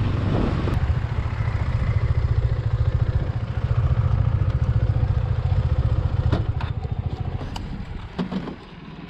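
KTM 390 single-cylinder motorcycle engine running under way, its low pulsing note easing off in the last few seconds, with a few light clicks near the end.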